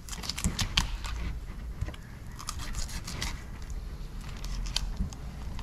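Fillet knife cutting along the backbone of a queen snapper (onaga), scraping through the flesh with a run of short sharp clicks, thickest in the first second and again a few times later.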